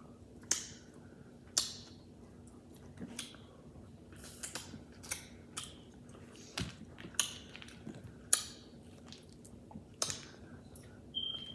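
Close-miked mouth sounds of someone eating saucy seafood: wet smacks and chewing, as a dozen or so irregular sharp clicks.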